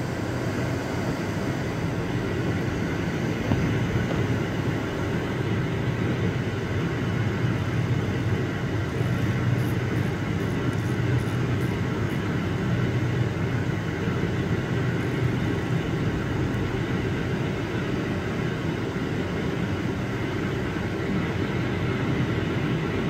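CNC lathe with its spindle turning the workpiece, a steady machine hum and rumble. The cutting tool is closing in on the part face but not yet cutting. A few faint high ticks come about ten seconds in.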